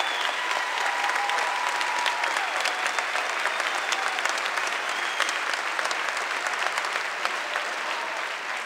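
Large crowd clapping and applauding steadily, tapering off near the end.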